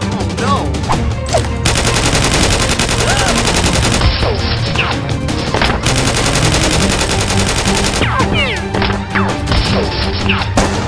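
Dubbed rapid gunfire sound effects in long bursts, with a few whizzing glides, over action background music with a steady beat.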